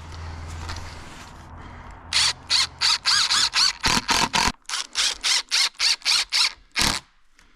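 A screw being driven into the fence with a power driver in a quick series of short trigger bursts, about three a second for some five seconds, with a squeal in each burst. A low steady hum lies under the first half.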